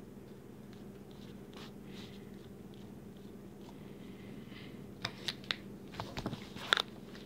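Slime being handled and squeezed close to the microphone: soft faint crackles, then from about five seconds in a run of sharp clicks and pops, the loudest near the end. A steady low hum sits underneath.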